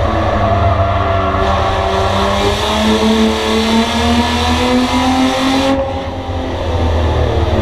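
Bomber-class race car's engine, heard from inside the stripped cabin at racing speed. Its pitch climbs steadily as the car accelerates down the straight, then falls away about six seconds in as the driver lifts for the turn, and the engine picks up again just before the end.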